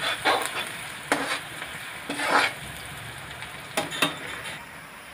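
Chopped onions and green chillies sizzling in hot mustard oil in an iron kadai, being fried to light brown, while a steel spatula scrapes across the pan in several stirring strokes, the last two close together near the end.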